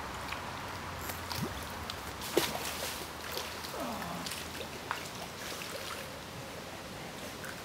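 Water splashing and sloshing as a hooked carp is played close to the bank and drawn toward a landing net, with a few sharp splashes or knocks, the strongest about two and a half seconds in.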